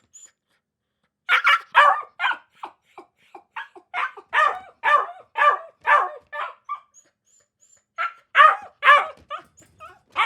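A dog barking in quick runs, about two barks a second, with a few smaller yips between them; the barking starts about a second in and stops for about a second shortly before the last burst.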